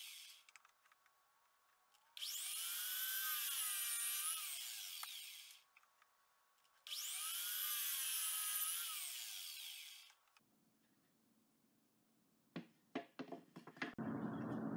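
A 12-inch electric miter saw run twice, each run a motor whine that rises as the blade spins up and cuts, then falls away as it winds down, sounding thin. A few light knocks of wood being handled follow.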